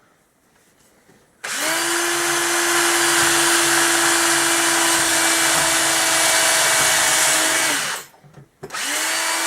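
Makita 18-volt cordless drill running on its high speed setting while drilling. A steady motor whine starts about a second and a half in and holds for about six seconds, then stops. The drill starts again near the end.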